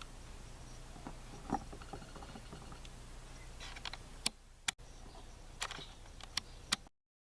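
A few sharp clicks and taps of small objects being handled over a low steady hum, then a sudden cut to dead silence near the end.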